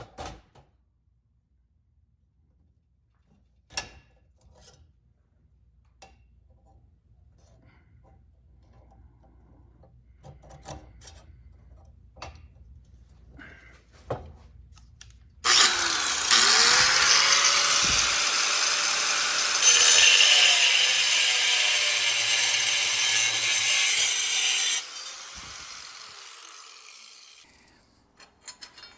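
Scattered knocks and clicks of metal parts being handled, then a power tool running loud under load on metal for about nine seconds, cutting off sharply and winding down to a stop.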